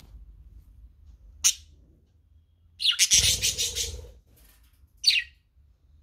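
Pet budgerigar chirping: a short high chirp about a second and a half in, then a rapid run of chattering calls lasting about a second, and one more short chirp near the end.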